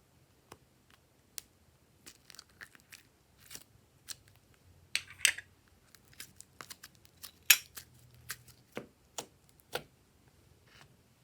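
Glossy slime being handled and mixed, giving irregular sticky clicks, pops and crackles, loudest around the middle of the stretch.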